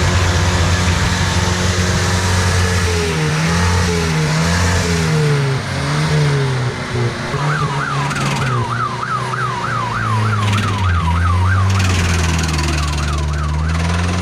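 Classic pickup engine running and being revved up and down, with a fast warbling electronic siren, about three wails a second, joining about halfway through.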